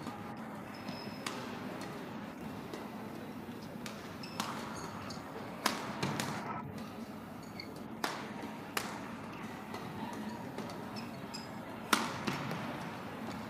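Badminton racket strikes on a shuttlecock in an echoing sports hall: sharp cracks a second or more apart, the loudest about halfway through and near the end, over steady hall noise.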